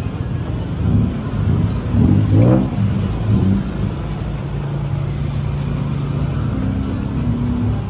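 A motor vehicle's engine revs up sharply about two seconds in, then runs at a steady low drone.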